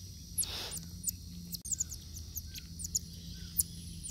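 Marmosets giving short, very high-pitched chirping calls, many quick downward-sliding chirps in a row, while they feed from a hand. A brief rustle about half a second in.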